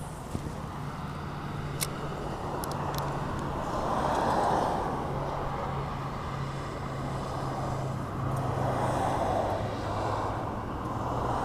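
Road traffic: vehicles going by in three swells that rise and fade, over a steady low engine hum. A few light clicks come in the first three seconds.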